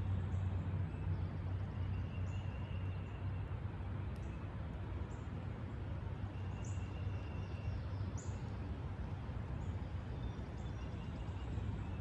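Woodland ambience: a steady low rumble, with birds giving short high chirps every second or two and a faint trill.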